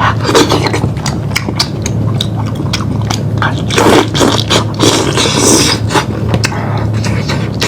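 Close-miked eating sounds: biting and chewing lamb meat, with wet smacks and frequent small clicks and crackles, over a steady low hum.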